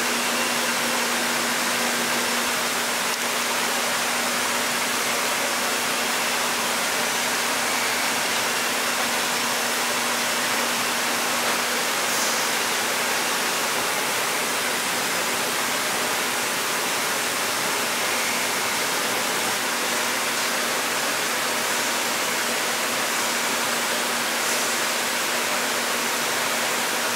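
Steady rushing machine noise with a faint low hum, unchanging throughout.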